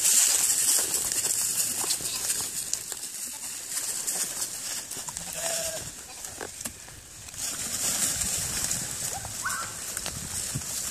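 Flock of ewes and lambs on the move, with a few short sheep bleats over a steady high hiss.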